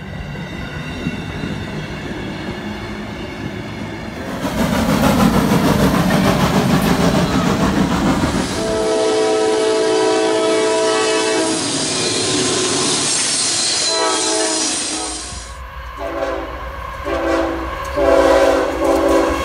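Train sounds from clips cut together: a passenger train rolling past with wheel noise, louder about four seconds in, then diesel locomotive air horns sounding. Near the end a CSX freight locomotive's horn gives three blasts, the last one longest.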